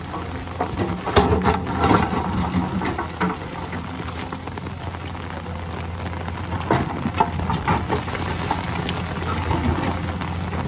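Hyundai crawler excavator's diesel engine running steadily under hydraulic load. Scattered knocks and rattles of soil and rock as the bucket digs into the slope and lifts, heaviest about a second in, around two seconds and around seven seconds.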